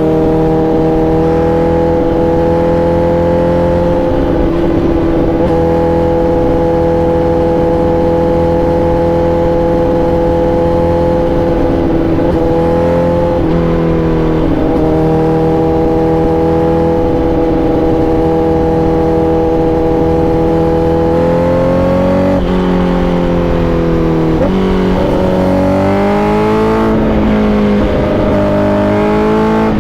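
Honda CBR1000RR-R SP's inline-four engine running under steady throttle, holding one even note for most of the stretch with a brief dip partway through. Over the last several seconds the engine pitch changes in steps with short breaks, as the throttle and gears change.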